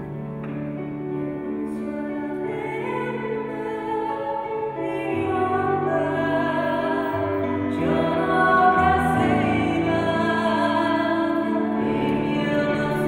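A woman singing a slow, wordless-sounding song in long held notes that step from pitch to pitch, over sustained chords on a Kawai MP5 stage piano.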